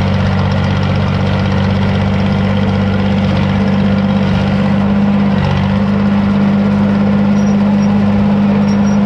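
Small John Deere crawler dozer's engine running steadily, its note shifting slightly about five seconds in.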